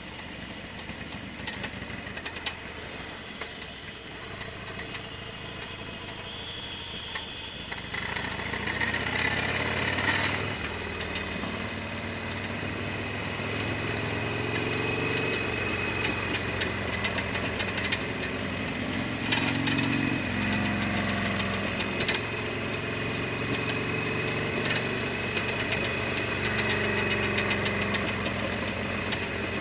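Harley-Davidson Sportster XL1200R's V-twin engine running under way. It gets clearly louder about eight seconds in, and its note then steps up and down several times with changes in speed.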